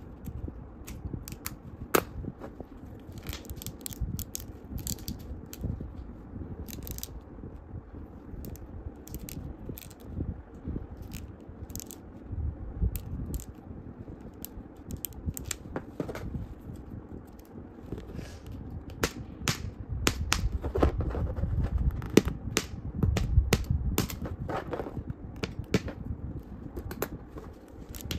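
Hands working a plastic action figure: scattered sharp clicks and snaps of its plastic parts as the head is pulled off and pushed back onto the neck joint, with rubbing and fumbling of the plastic in the fingers that grows louder about two-thirds of the way in.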